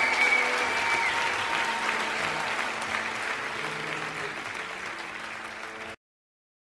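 Audience applauding after the song, slowly dying down, with a last held musical note fading in the first second. The recording cuts off abruptly about six seconds in.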